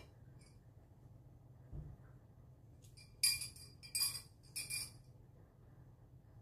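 Three short, ringing clinks of a ceramic mug and its lid knocking together, a little past the middle, each under a second apart. A soft knock comes a couple of seconds earlier.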